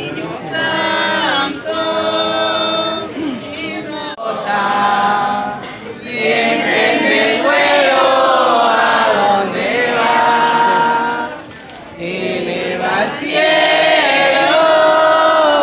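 A group of men and women singing a devotional hymn in Spanish together, in long held phrases with short breaks between them and one longer pause about three quarters of the way through.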